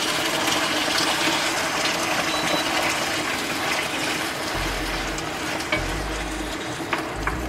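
Chicken tenders and green beans sizzling steadily in a hot skillet as jarred tomato sauce is poured in and stirred. Near the end a spoon gives a few light clicks against the pan.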